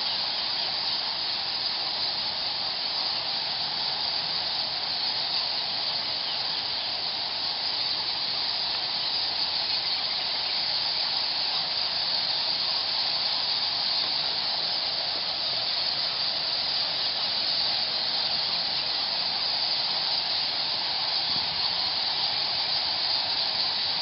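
A huge roosting colony of Geoffroy's rousette fruit bats in a packed cave, their calls blending into a steady, high hiss.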